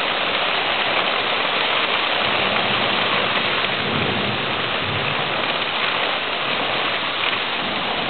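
Heavy rain pouring down steadily at the start of a thunderstorm, with a low rumble swelling briefly in the middle.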